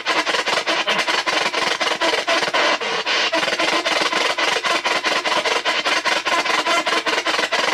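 P-SB7 spirit box radio sweeping the AM band: steady static hiss, chopped at an even, rapid rate of about seven times a second as the scan jumps from station to station.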